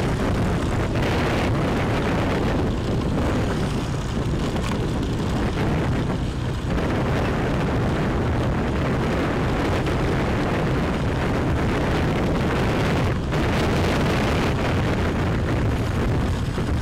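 Steady wind rush buffeting the microphone of a camera on a moving motorbike, heaviest in the low end, with the motorbike's running and road noise beneath.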